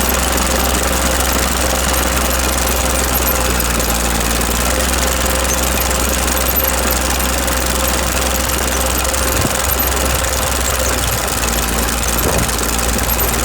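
Mitsubishi diesel engine of a Case DH4B trencher running steadily.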